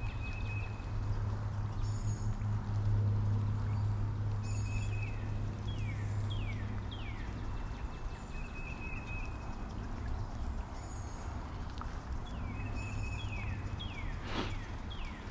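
Birds calling in wet woodland: repeated short descending whistles, a held whistled note and brief high chirps every few seconds, over a steady low hum. A brief swish sounds near the end.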